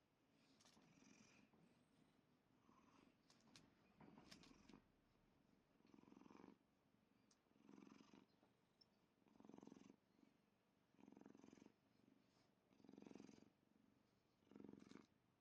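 Domestic cat purring faintly, the purr swelling in pulses about every 1.7 seconds with each breath. A few light clicks sound around four seconds in.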